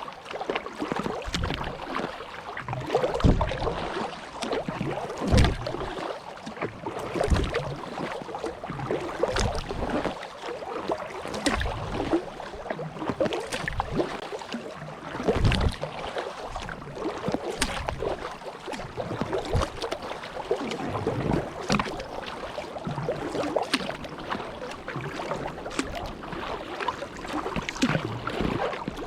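Kayak paddle strokes: the blades dip and pull through the water with splashing and dripping, a low thump about every two seconds.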